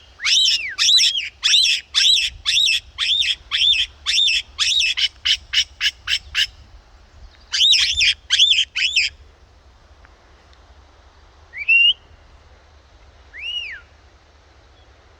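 A bird calls in a rapid series of sharp, arching squawks, about two to three a second for some six seconds. A shorter burst follows, then two single calls near the end. Low wind rumble underneath.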